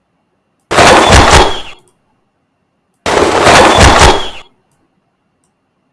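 A loud cinematic impact sound effect for a kung fu palm strike, a blast made of several rapid cracks, played twice about two seconds apart.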